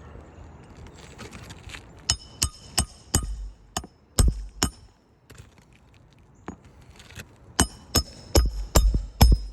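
Two runs of quick hammer blows on metal, each strike ringing sharply, about seven blows per run with a pause of a few seconds between them, as in driving a roofing nail into shingles.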